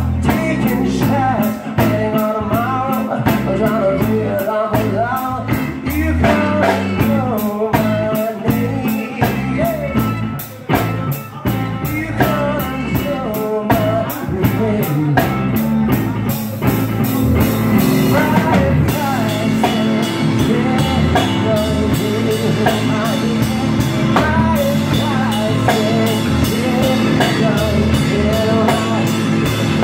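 Live rock band playing: electric guitar, electric bass and drum kit over a steady beat, with a wavering melodic line on top. The drumming changes to a fuller, denser texture a little past halfway.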